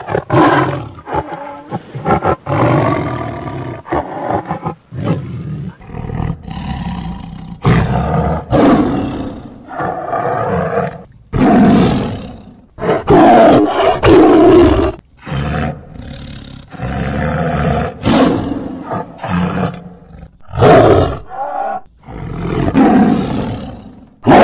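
Tiger roaring and growling over and over: a long series of loud, deep calls, each a second or two long, with short gaps between them.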